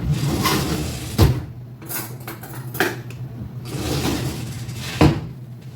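Metal fork and kitchenware clattering: rustling handling noise broken by three sharp clinks and knocks, the loudest about a second in and near the end.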